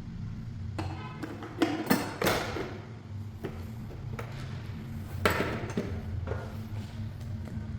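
A series of sharp knocks and clicks, several close together about two seconds in and another loud one near the middle, from the parts of a Cuckoo pressure rice cooker being handled and fitted back together. A steady low hum or background music runs underneath.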